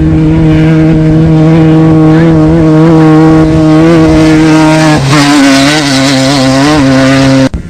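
Off-road desert race vehicle's engine running hard at a steady, loud pitch, then dropping to a lower, wavering pitch about five seconds in. The sound cuts off suddenly near the end.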